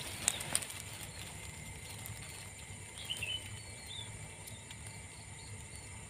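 A few sharp clicks in the first half-second, then a few short bird chirps about three seconds in, over a steady faint hiss.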